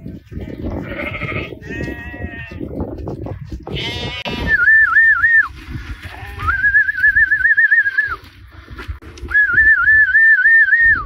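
A flock of sheep bleating, several calls overlapping. Then three loud whistles, each held at one high pitch with a quick warble: about a second long, then nearly two seconds, then nearly two seconds again.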